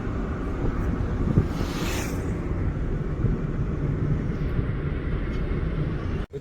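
Wind buffeting the microphone, a steady low rumble, with a brief hiss swelling about two seconds in.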